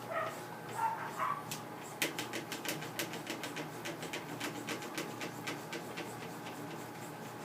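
Belt-driven homemade ceiling fan running with a steady hum, and a rhythmic ticking about four times a second from about two seconds in. A dog whimpers a few times near the start.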